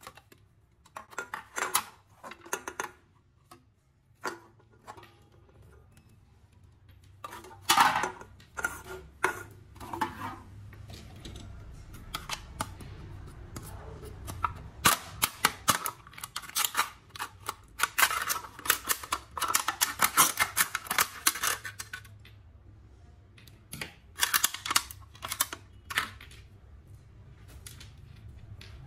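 Scissors cutting through a thin aluminium drink can, with the sheet metal crackling and crinkling in quick runs of sharp clicks, and a few knocks as the cans are handled.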